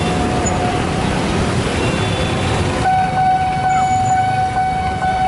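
Train noise at a railway level crossing: a dense rumble under a steady, high warning tone from the crossing siren. About three seconds in the rumble drops away abruptly and the steady tone stands out clearly.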